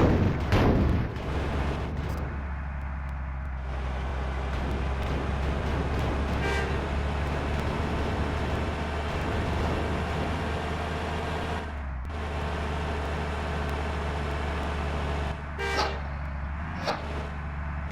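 Heavy road vehicle's engine running with a steady low drone, with brief horn toots about six seconds in and again near the end. A sound falling in pitch passes in the first second.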